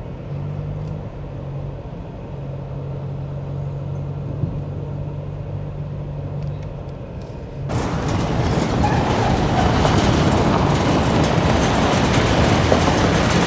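A vehicle engine droning at a steady low pitch, then about eight seconds in a sudden switch to a louder, rushing, rattling noise of a vehicle on the move.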